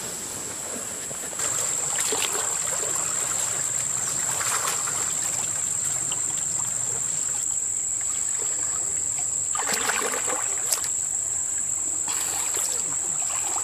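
Water sloshing and splashing as a soldier in a ghillie suit wades and crawls through a muddy creek, in several bursts, the strongest about ten seconds in. A steady high-pitched hum runs underneath from about a second and a half in.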